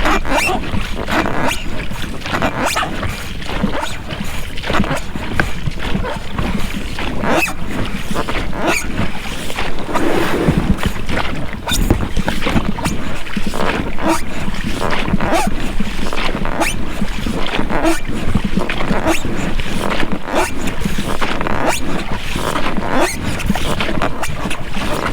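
Oars of a rowing boat dipping and splashing in the water, with the rubber rowlocks working at each stroke.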